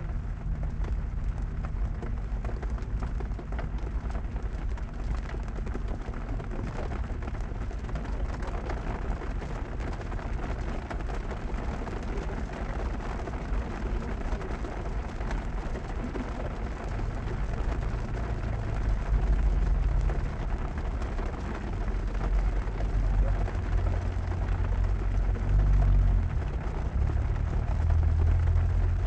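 Heavy rain falling on a car's roof and windshield, heard from inside the cabin: a dense patter with a low rumble that grows louder in the second half.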